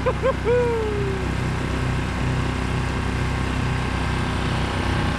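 Small outboard motor of a one-person skiff running steadily under way, with a hiss of wind and water. In the first second there are a few short high calls and then one longer falling call.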